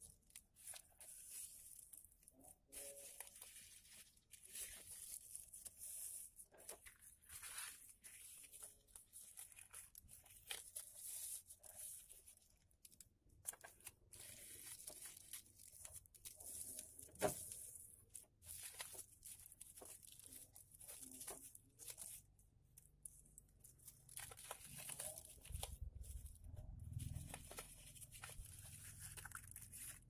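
Faint rustling and crinkling of a sheet of origami paper being handled, folded and creased by hand, with one sharp tap about halfway through.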